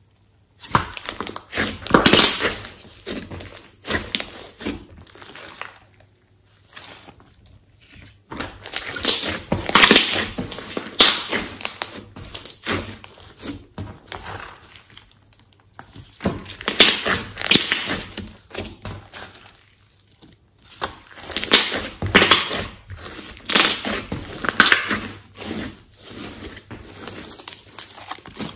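Thick glossy slime with clay and glitter mixed in, squeezed, poked and stretched by hand: bursts of sticky clicks and pops as trapped air is pressed out, with short quiet pauses between handlings.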